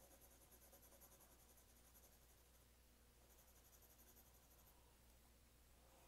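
Faint scratching of a 4B pencil lead on drawing paper: quick back-and-forth hatching strokes in two runs, with a short pause a little before the middle.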